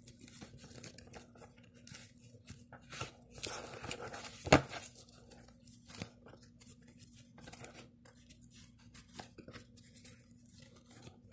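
Tarot cards and their clear plastic holders being handled: scattered rustles and light clicks, with one sharp click about four and a half seconds in, over a faint steady hum.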